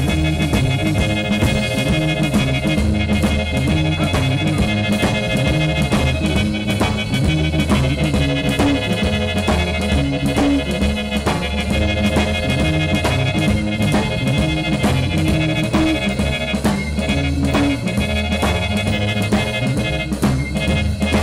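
Live band playing a boogie-woogie blues, with a repeating stepping bass figure, steady drum strokes and held pitched notes above.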